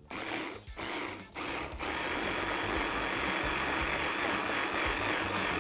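Countertop blender pulsed in three short bursts, then running steadily from about two seconds in, puréeing chunks of tomato, onion, garlic and herbs in olive oil into a smooth tomato sauce.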